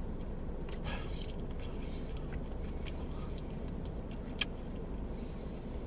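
Quiet chewing and small wet crackles of someone eating a chicken wing, with a sharp click a little past four seconds in, over a low steady rumble inside a car.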